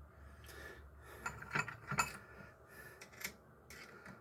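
Manual gearbox internals being handled during disassembly: light metallic clicks and clinks of gears and the synchronizer sleeve being moved on the shaft. There are several sharp clicks, the loudest near the middle and again about three seconds in.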